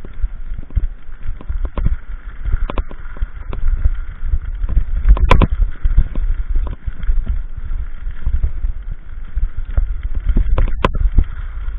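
Irregular knocks and crunches over a heavy low rumble, with two sharper clicks about five seconds in and near the end: handling and wind noise from an action camera carried along the track.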